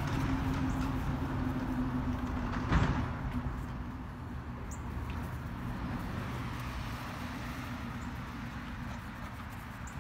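Outdoor background noise with a steady low engine-like hum that fades out about four seconds in, and a single sharp knock about three seconds in.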